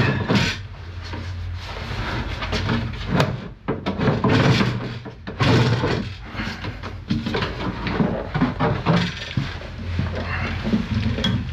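Wooden drawer unit on metal drawer runners being worked loose, slid and lifted out of an SUV's cargo bay: irregular knocks, bumps and scraping of wood and metal, over a low steady hum.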